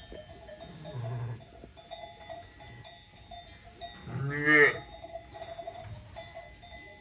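Sheep bleating: a soft, low call about a second in and a loud, drawn-out bleat just past the middle. A sheep bell clinks faintly underneath.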